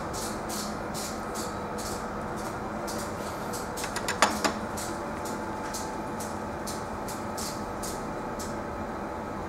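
Rhythmic scrubbing strokes, about three a second, of a sample being rubbed back and forth over a stainless steel test plate, with an ATP test swab doing the swabbing in the latter part; the strokes stop near the end. A few small clicks come about four seconds in, over a steady background hum.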